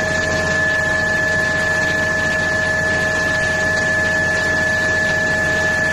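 Komatsu PC3000 mining excavator running steadily: an even, noisy drone with a steady high whine over it.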